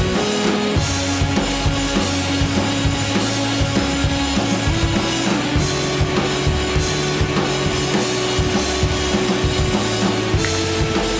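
Background rock music with a steady drum beat and bass line.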